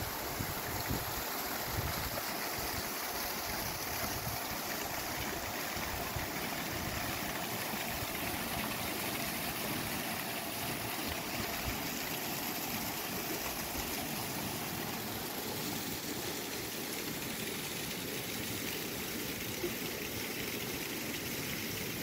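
Small mountain waterfall and stream cascading over boulders: a steady, even rush of falling water.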